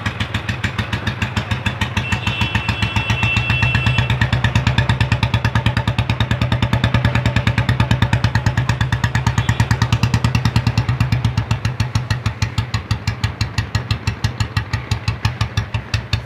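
Old Royal Enfield Bullet's single-cylinder engine running steadily with an even beat, growing a little louder a few seconds in and easing back later. It runs evenly, which the mechanic takes as a well-set engine after adjusting its contact-breaker points.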